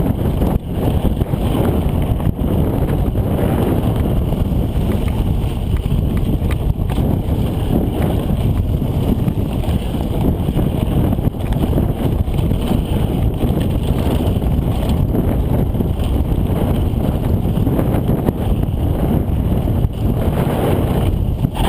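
Wind buffeting the camera's microphone on a fast descent, a steady loud rumble with scattered knocks from the rough trail.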